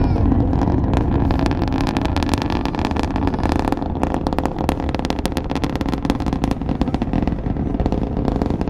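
The launch roar of Space Shuttle Discovery's solid rocket boosters and three main engines, heard from about 3.5 miles away: a deep, continuous rumble laced with dense crackling.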